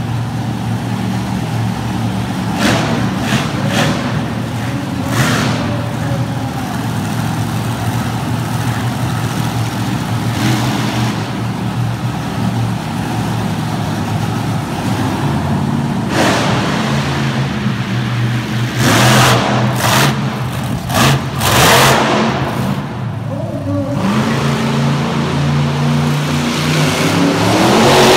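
Monster truck engine running with a steady low rumble. It revs in several short, loud blasts about two-thirds of the way in, then climbs in pitch near the end as the truck accelerates across the dirt.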